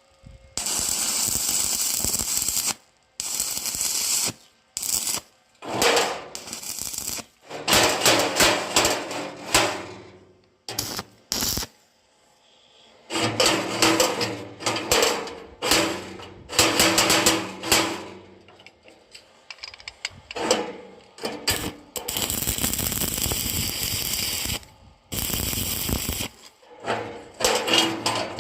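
Metalworking on the parts of a steel door latch, heard in short clips with sudden cuts between them: stretches of steady hissing noise alternate with runs of rapid metallic knocking and rattling.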